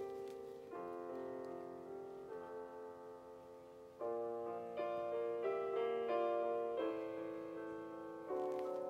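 Background piano music: slow, sustained chords and melody notes, growing louder about four seconds in.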